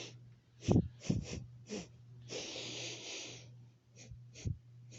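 A puppy sniffing right at the camera's microphone: a quick run of short sniffs, a longer breath about two and a half seconds in, then a few more sniffs near the end, over a steady low hum.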